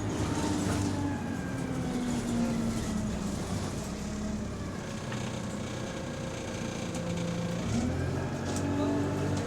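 Diesel engine of a double-decker bus heard from inside the cabin, its note falling as the bus eases off over the first couple of seconds, then picking up again about eight seconds in as it pulls away. The gearbox is in limp mode with no kickdown, and the exhaust has a small leak.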